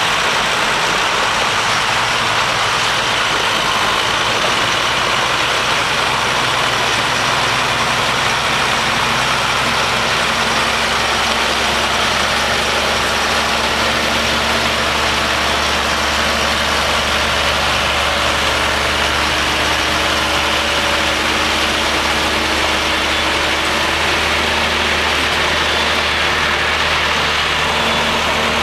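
Diesel engines of Fendt tractors and a Mercedes-Benz truck running steadily under load, the tractors towing the beet-laden truck and trailer through the muddy field.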